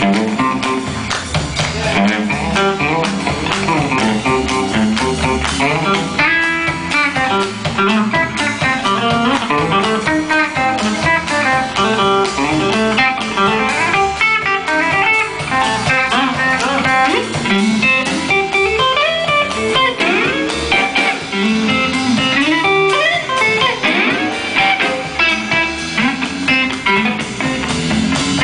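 Live blues band with no singing: a Stratocaster-style electric guitar plays lead lines with bent notes over drums and bass.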